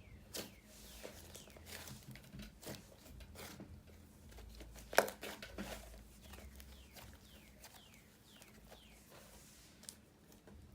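Slime being squished, poked and stretched by hand, giving a run of small wet clicks and popping air bubbles, with one louder pop about five seconds in.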